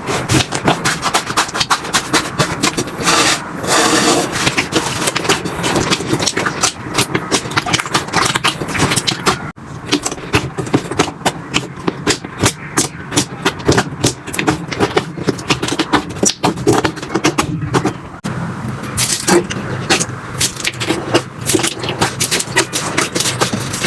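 Slime being squished and pressed by hand: a dense run of sticky clicks, pops and crackles. The texture changes abruptly about nine and a half seconds in and again around eighteen seconds.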